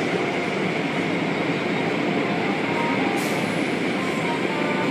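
Automatic tunnel car wash running: a steady rushing noise of rotating brushes and water spray, heard through the glass of a viewing window, with a brief hiss about three seconds in.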